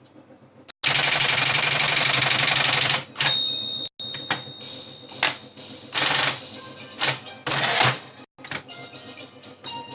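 Facit 1820 electric typewriter: the motor hums, then a rapid, even run of key strikes lasts about two seconds, followed by a brief ringing tone and then separate keystrokes and short bursts of typing.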